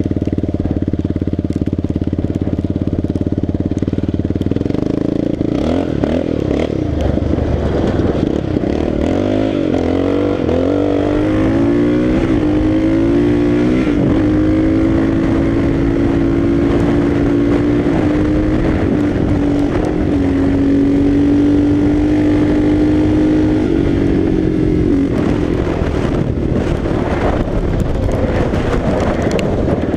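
Quad (ATV) engine under way: steady at first, then revving up through rising pitches from about five seconds in, holding a steady high pitch while running fast, then easing off and varying near the end.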